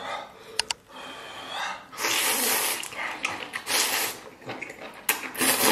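A man slurping noodles from a bowl: about three long, hissing slurps as he sucks the noodles into his mouth.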